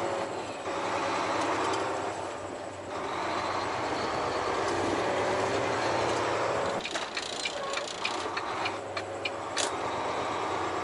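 Semi-truck diesel engine heard from inside the cab, pulling at low speed with a steady hum and a dip in level about two seconds in. Short clicks and rattles come in the second half.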